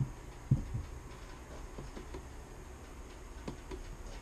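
A few short, dull knocks over a low steady hum, the loudest about half a second in.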